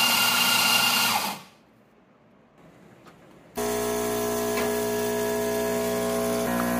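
Electric coffee grinder whirring as it grinds into a portafilter, stopping about a second in. After a quiet gap, an espresso machine's pump starts with a steady hum as it pulls an espresso shot.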